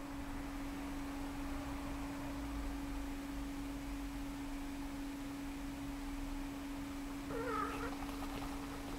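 A steady, even hum at one pitch runs under everything. About seven seconds in, a cat gives one short meow that wavers in pitch.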